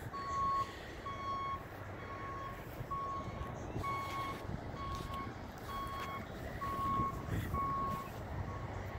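Railroad grade-crossing warning bell, an electronic beep-type bell, dinging steadily about once a second over a low rumble: the crossing is activated for an approaching train.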